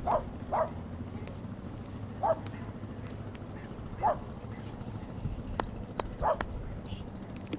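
A dog barking: five short single barks at uneven intervals over a steady low hum, with two sharp clicks between the last barks.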